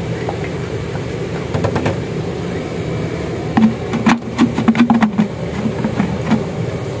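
A steady low engine drone, with a run of sharp metallic clicks and taps from about halfway through to near the end.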